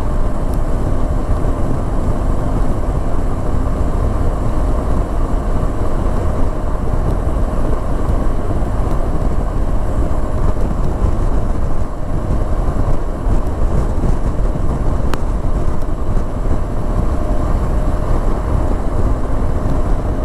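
Steady wind rush and road noise of a vehicle cruising at highway speed, about 100 km/h, with a faint, even engine hum underneath.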